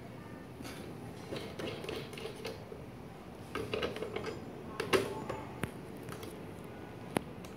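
Small clicks and rattles of a drone propeller being handled and screwed onto its motor shaft, with the loudest sharp click about five seconds in and another short click near the end.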